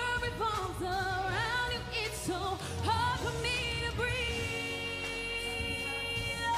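Female pop singer singing wordless runs live into a handheld microphone over a pop backing track, then holding one long note through the last couple of seconds.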